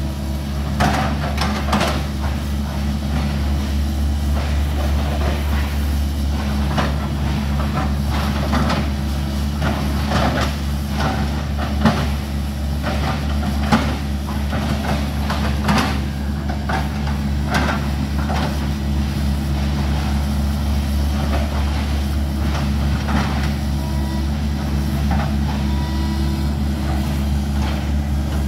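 Hitachi hydraulic crawler excavator's diesel engine running steadily at a low drone, with irregular sharp knocks and clanks over it every second or few.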